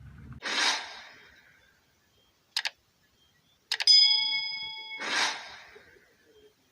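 Edited-in sound effects: a whoosh about half a second in, a click, then a double click and a ringing bell ding lasting about a second, followed by a second whoosh.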